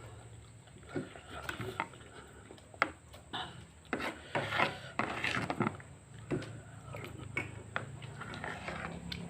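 Eating sounds: a utensil clicking and scraping against a dish of noodles, in scattered short knocks that cluster about four to six seconds in.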